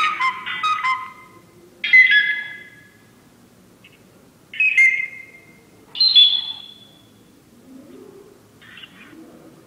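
A run of short, high whistle-like chirping notes, each fading away, in about five bursts one to two seconds apart, the last one weaker.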